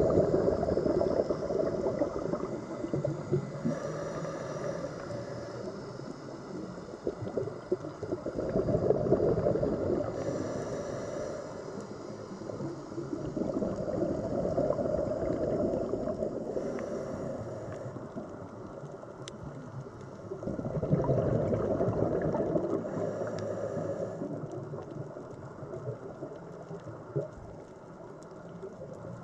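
Scuba diver breathing through a regulator underwater: four long bursts of exhaled bubbles gurgling, about every six to seven seconds, with a faint hiss from each inhale in between.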